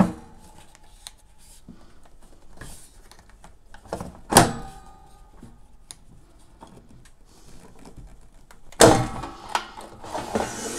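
Hard plastic knocks and clunks from an air fryer's basket drawer and handle being worked by hand: a couple of sharp knocks about four seconds in, then a louder clatter near the end.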